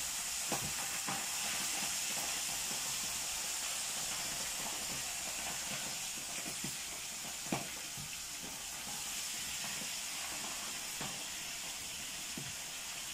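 Singhara fish frying in oil: a steady sizzle with scattered small pops, one sharper pop about seven and a half seconds in.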